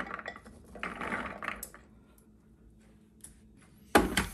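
Soaked chickpeas poured from a mesh strainer into a plastic food processor bowl, rattling in two bursts in the first two seconds. Near the end comes one loud clack as the processor's plastic lid is fitted onto the bowl.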